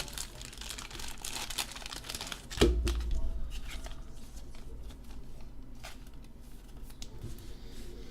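Trading card pack wrapper crinkling and tearing open, with one dull thump about two and a half seconds in, then quieter handling of the cards.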